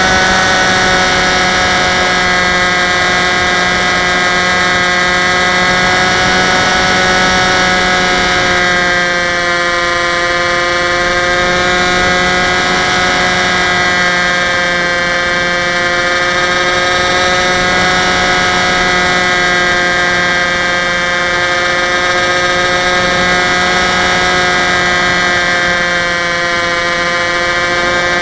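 Onboard sound of an RC plane's electric motor and propeller in flight: a steady, loud whine with a rush of air over the airframe. The pitch sags a little around nine seconds in and again near the end, as the throttle eases.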